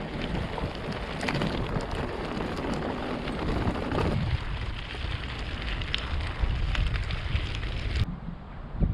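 Knobbly 29er mountain-bike tyres rolling over a gravel track, a steady rough noise with many small crunches and clicks, mixed with wind on the microphone. About eight seconds in it cuts off abruptly to a quieter outdoor hush.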